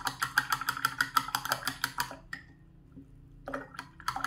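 Paintbrush swirled in a glass water jar, clinking rapidly against the glass for about two seconds, then a few more clinks near the end: the brush being rinsed between colours.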